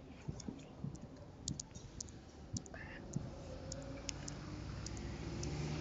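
Typing on a smartphone's on-screen keyboard: scattered, irregular short clicks of keys being tapped, with a low hum growing louder over the second half.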